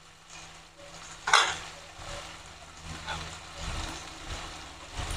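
Faint sizzle of a vegetable stir-fry in a wok, with one sharp clack about a second in and a few lighter knocks after it.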